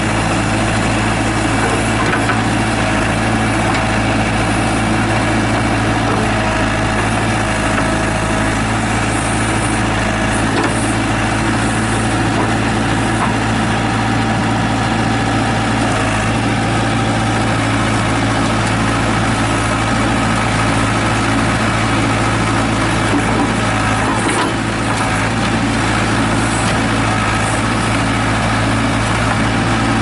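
Four-cylinder Perkins diesel engine of a 1998 JCB 210S Series II backhoe loader running steadily while the backhoe arm digs.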